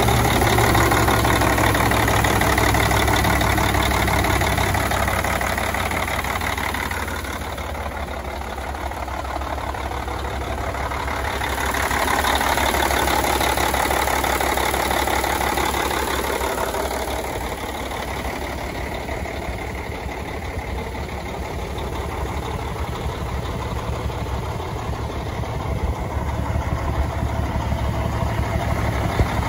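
Diesel engine of a 2007 Freightliner Century semi tractor idling steadily. It grows louder and quieter as the microphone moves from the open engine bay around to the back of the cab.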